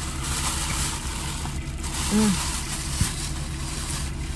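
A steady low engine hum, like an idling car, with a short voiced sound about two seconds in and a single click about a second later.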